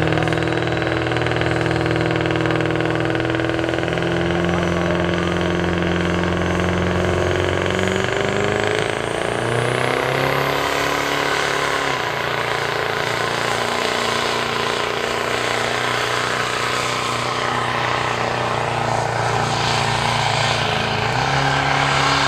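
Diesel pickup truck's engine pulling a weight-transfer sled: a loud steady engine note that climbs in pitch about eight seconds in as the truck takes off, with a high turbo whistle rising alongside it. The engine then holds a high, steady note under load, changing again near the end.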